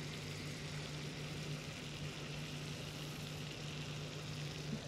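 Garlic butter in a sauté pan giving a faint, steady sizzle just after the heat is turned off, over a steady low hum.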